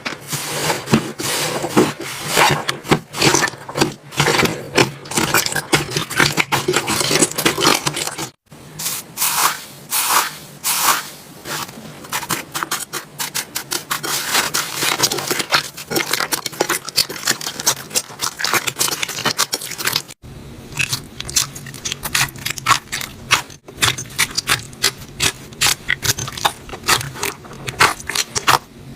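Slime being squeezed and worked by hand: a dense, irregular run of crackling, popping and scraping clicks. The sound breaks off briefly twice, about eight and twenty seconds in.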